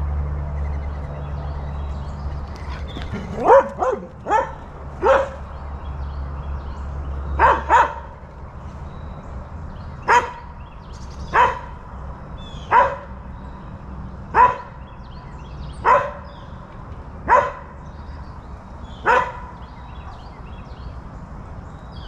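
A dog barking repeatedly: a quick run of barks in the first few seconds, then single barks at a steady pace, about one every second and a half.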